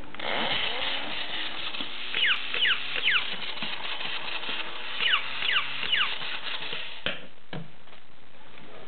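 Vintage 1950s Alps battery-operated Scottie dog toy running, its motor and walking mechanism going steadily. It gives two bursts of short, high yips that drop in pitch, about three yips in each, a few seconds apart. It stops with a click about seven seconds in.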